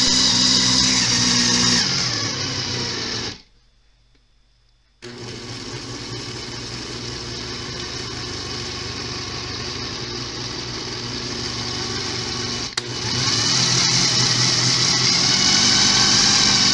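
Electric mixer grinder (mixie) running, grinding roasted peanut powder, jaggery and ghee into a dough. It runs for about three seconds, stops for a second and a half, then runs again and grows louder about two-thirds of the way through.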